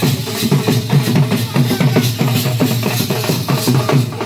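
Indian wedding brass band playing a trumpet over a quick, steady drum beat, about four strokes a second.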